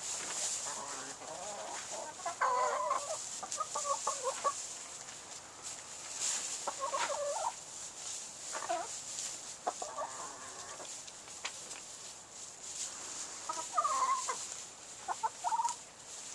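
Backyard hens clucking in short bursts of calls, each cluster about a second long, coming every few seconds.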